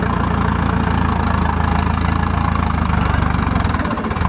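Mahindra jeep's engine idling steadily at a low, even pitch, dipping briefly near the end.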